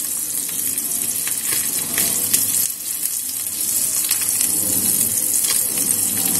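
Small dried fish sizzling steadily as they shallow-fry in oil in an aluminium pan. A few light clicks come from a fork against the pan as the pieces are turned over.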